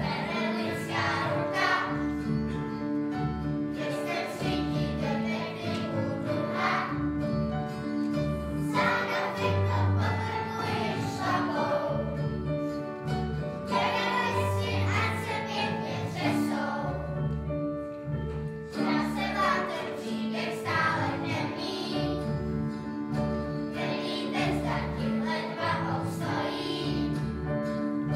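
Children's choir singing a song together, accompanied by keyboard and double bass, with steady low bass notes under the voices.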